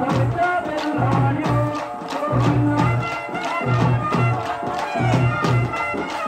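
Folk music for a kolatam stick dance: a voice singing over a steady drum beat, with sharp clicks in rhythm that fit the dancers' wooden sticks striking together.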